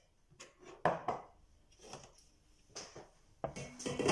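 Cookware being handled on a wooden counter: a string of separate knocks and clatters, the loudest near the end as a nonstick pan with a plate in it is set down.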